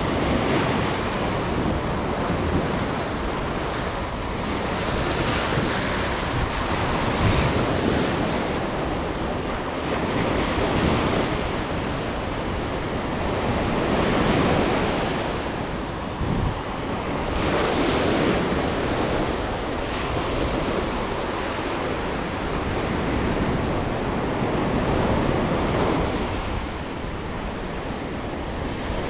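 Small ocean waves breaking and washing up a sandy beach close by, the surf swelling and easing every few seconds.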